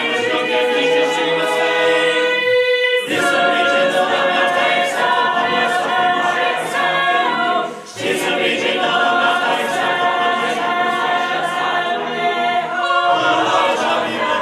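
An a cappella choir singing held, layered chords, with short breaks about three seconds in and again near eight seconds.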